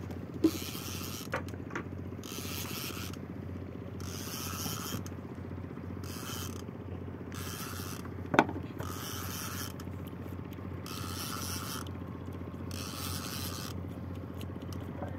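A fishing reel being wound in short spells, each a ratcheting whir of under a second, repeating every second or two as a hooked queenfish is pumped in on a bent rod. A steady low hum runs underneath, and a sharp knock comes about eight seconds in.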